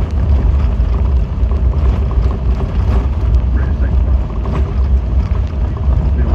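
Steady low rumble of a car's engine and tyres on the road, heard from inside the moving vehicle.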